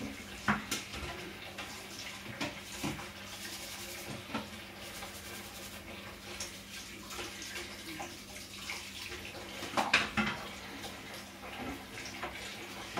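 Tap water running into a kitchen sink during hand washing-up, with a few clinks and knocks of dishes.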